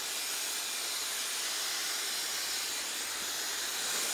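Hand-held hair dryer blowing steadily, a constant rush of air, while hair is blow-dried with a round brush.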